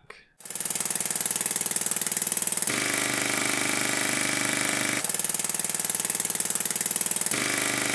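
Two small 3D-printed compressed-air piston engines running at high speed in turn, cutting back and forth about every two and a half seconds: a fast, even buzzing chatter of air pulses. The new ball-valve engine, the faster performer, runs with an added steady high whine; the old diaphragm-valve engine runs without it.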